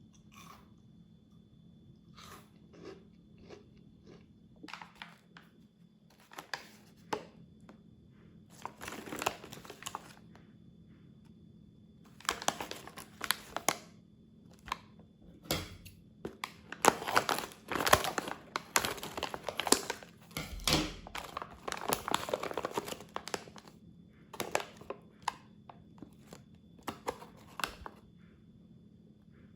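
Plastic snack wrapper crinkling and tearing as it is handled and opened, in irregular bursts of crackling that grow busiest in the middle.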